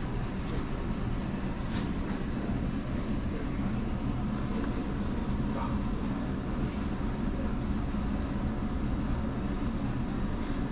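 Steady low mechanical rumble with a constant hum, with a few faint ticks over it.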